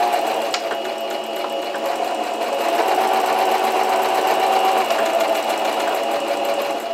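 Singer Brilliance 6180 computerized sewing machine running steadily as it stitches through fabric. The seam runs smooth, the sign that the top thread went through the tension discs correctly.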